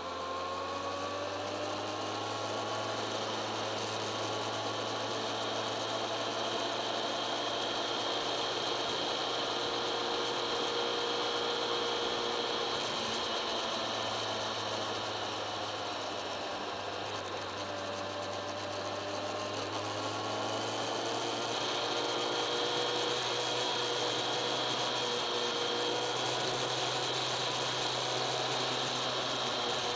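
Kawasaki ZX-10R inline-four sportbike engine heard on board while riding, its note climbing and easing off several times with the throttle, over wind and road noise and a steady high mechanical whine.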